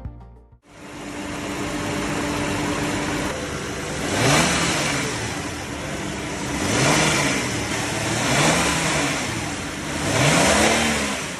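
Toyota Crown's engine running steadily, then revved four times, each blip rising in pitch and falling back to idle.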